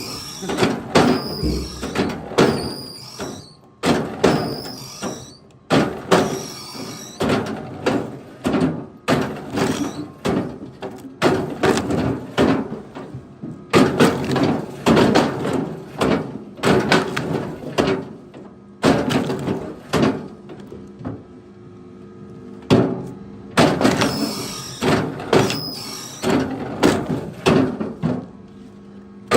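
A run of hard wooden knocks and thuds, roughly one a second, as firewood is chopped and handled, over a steady low hum.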